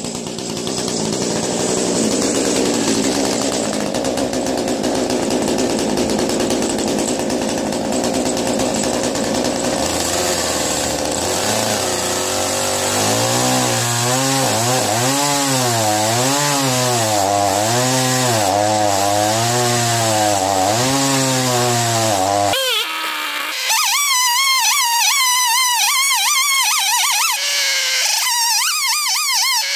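Gas chainsaw in a chainsaw mill ripping a maple log, running steadily under load, its chain filed with the rakers (depth gauges) removed. From about ten seconds a slowly wavering tone rises and falls over the saw noise. After about twenty-two seconds the saw noise drops away and only the wavering tone remains.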